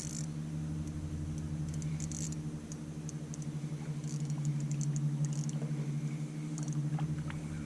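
A steady low mechanical hum, with faint scattered clicks and rattles over it.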